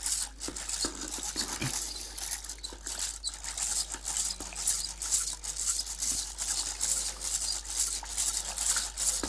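Hand-cranked rotary egg beater whisking a thin milky soup in a saucepan: the beaters whir and churn the liquid in quick repeated pulses, with small clicks of the mechanism.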